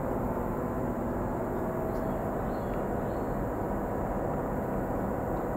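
Steady outdoor background noise: a low, even rumble with no distinct events.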